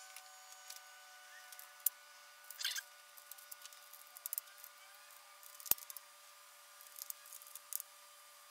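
Faint, scattered clicks and taps of new hydraulic lifters being set into their bores in a Mazda BP 1.8 L cylinder head, the sharpest click a little over halfway through, over a steady faint hum.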